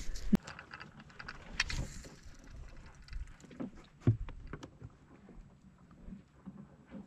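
Scattered handling noise, a mix of clicks, knocks and rustling, from a just-caught fish and fishing tackle being dealt with. There is a sharp knock just after the start and another about four seconds in.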